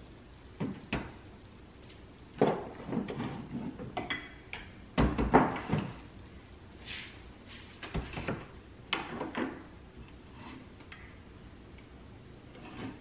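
Scattered knocks, clunks and rustles of kitchen items being picked up and set down on a countertop, the loudest about five seconds in.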